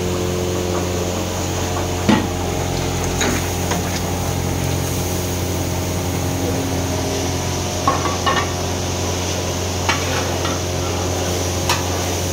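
Steady mechanical hum with a few scattered knocks and clinks of cooking utensils against pots.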